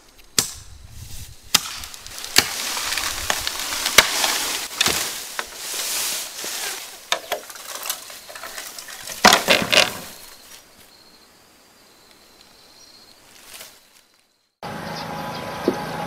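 Bamboo being chopped by hand with a blade: sharp blows in the first few seconds, a stretch of dense rustling and crackling of bamboo stems and leaves, then another quick run of blows a little past halfway. Near the end, after a break, a steady outdoor background.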